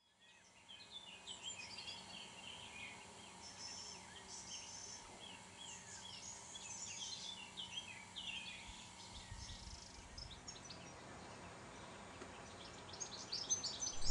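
Birdsong from several birds at once: many short, high chirps overlapping, faint, with a busier flurry of chirps near the end.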